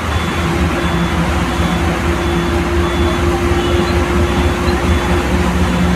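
Express bus heard from inside the cab while driving: a steady engine drone with a low rumble under a constant hiss of tyres on the wet road and rain on the windscreen.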